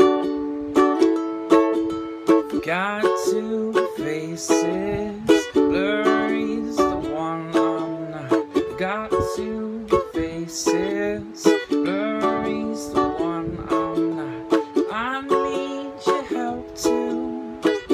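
Ukulele strummed in repeated chords, with a low voice singing along through much of it.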